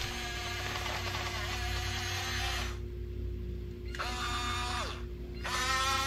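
The small electric drive motors and gearboxes of a Huina 1569 radio-controlled toy bulldozer whining as it pushes mulch. The whine stops for about a second just before halfway, comes back, winds down and stops again briefly near the end, then starts up louder.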